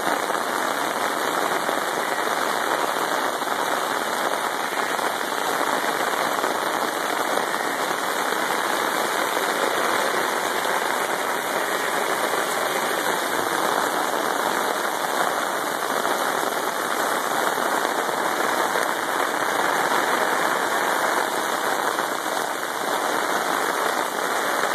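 Heavy rain pouring steadily onto floodwater and pavement, an even, unbroken hiss.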